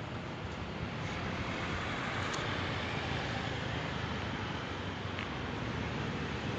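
Steady ambient background noise: a low rumble under an even hiss.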